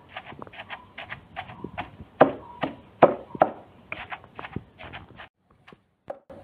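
Wooden pestle pounding curry leaves and grated coconut in a stone mortar: a run of dull thuds, about two or three a second, breaking off about five seconds in.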